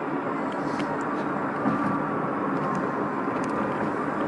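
Steady road and engine noise of a car moving at speed, heard inside the cabin.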